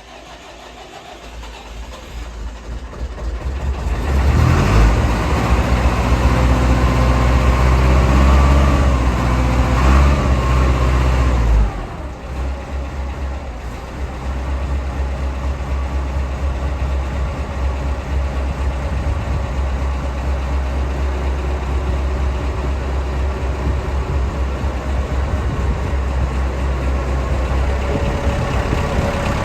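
Massey Ferguson 175 tractor engine running: it comes up in level over the first few seconds, runs harder for several seconds, then drops suddenly about 12 s in and settles into a steady lower-speed run.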